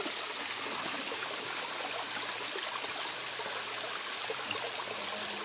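Shallow stream running over rocks, with a steady rushing of water.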